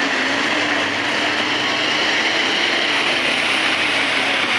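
Off-road vehicle's engine running steadily under a constant hiss of noise.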